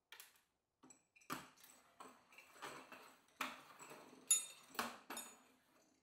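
Desk service bells being slid and bumped around on a tabletop: a string of about six knocks and clinks with faint metallic ringing, the loudest about four seconds in.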